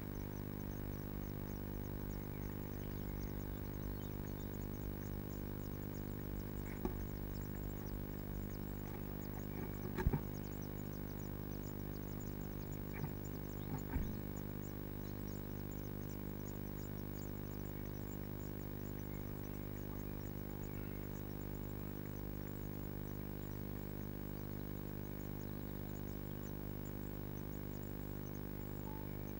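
Steady electrical hum picked up by the nest box camera's microphone, with faint, thin, high-pitched cheeping from blue tit nestlings begging. A few soft knocks come from inside the box in the first half.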